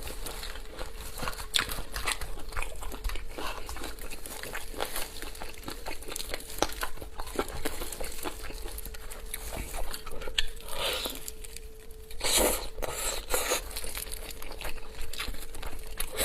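Crunching bites and chewing of fried chicken, mixed with crinkling, as a series of short crackly crunches.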